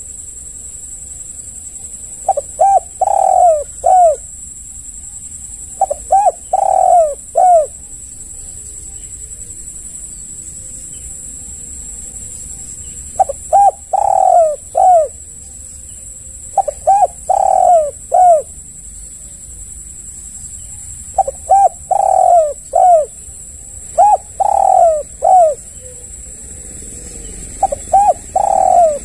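Spotted dove cooing: about seven phrases of three or four rounded coos each, separated by pauses of a few seconds, over a steady high hiss.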